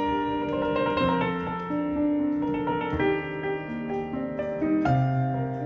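Slow piano music: held notes and chords that change every second or so, with no singing.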